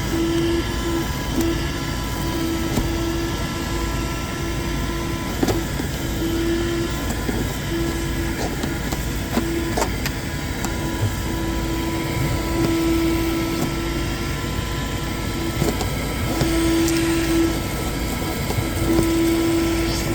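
Car vacuum cleaner running steadily with a motor whine, its low hum swelling and fading every second or two as the nozzle is worked into tight gaps. A few short clicks break in.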